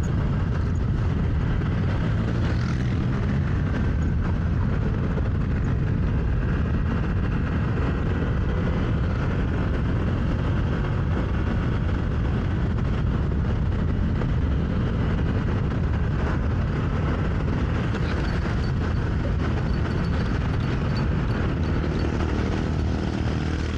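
Steady wind rumble and motorcycle engine noise picked up by a microphone on a moving rider.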